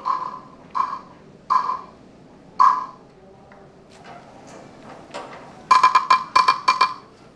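A street vendor's call signal, a hard object struck by hand to announce the pushcart: four single ringing knocks about a second apart, then after a pause a quick run of seven or eight knocks.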